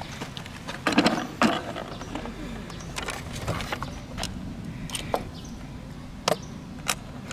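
Small toy car and a plastic carry case being handled: two short scraping rattles about a second in, then scattered sharp clicks and clacks as the toy is picked up and brought to the case's compartments.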